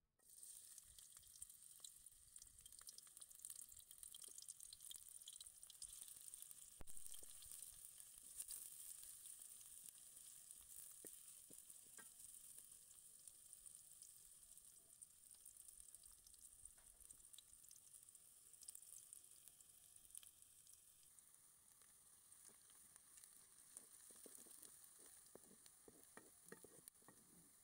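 Sliced onions sizzling steadily in hot oil in an aluminium pan, being fried into beresta (fried onions); the sizzle starts abruptly at the very beginning. Near the end, a wooden spatula stirs them, with a run of short scraping strokes.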